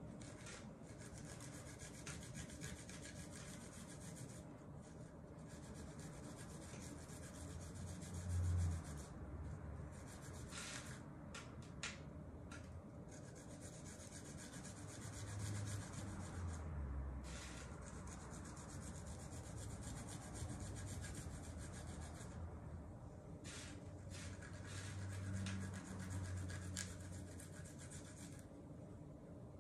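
Garlic cloves being grated on a fine rasp grater against a plastic cutting board: a continuous high scraping rasp of repeated strokes, broken by short pauses. A few dull knocks come through, the loudest about eight seconds in.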